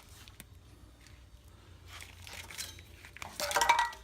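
Engine wiring harness being handled: plastic loom and connectors rustling and clicking, with a louder rattle of parts about three and a half seconds in.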